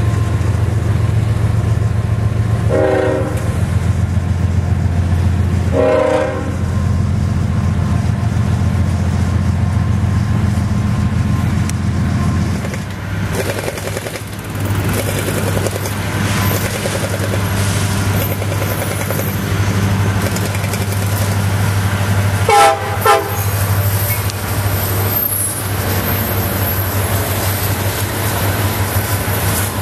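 Freight trains passing close by: hopper cars rolling past with a steady low rumble, and a diesel locomotive horn giving two short toots a few seconds apart. After a cut, a second freight led by diesel locomotives approaches and its horn sounds two short, loud blasts about two-thirds of the way through.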